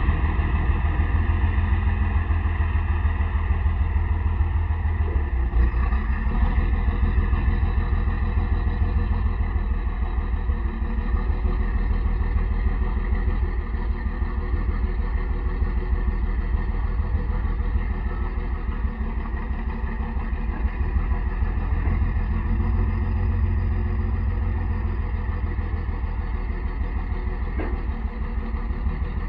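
Sterling Acterra truck's diesel engine running steadily with an even low beat, powering the crane hydraulics while the knuckle-boom crane is raised and extended.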